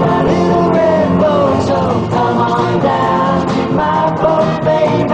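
A 1960s pop-rock band recording playing at full level, with no clear lyrics.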